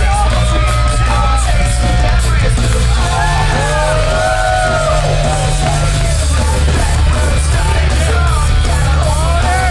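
Loud wrestling entrance music playing over the arena's speakers, with a heavy steady bass and yelled vocal lines.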